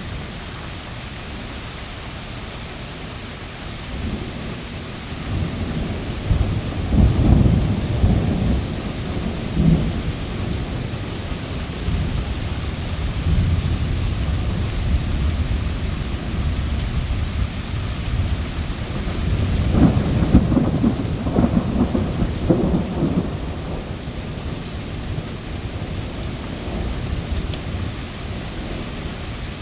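Steady rain falling, with two long rolls of low thunder rumbling through it, one starting about four seconds in and another about twenty seconds in.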